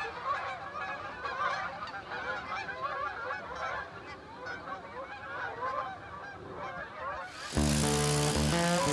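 A flock of geese honking, many calls overlapping. Louder background music comes in near the end.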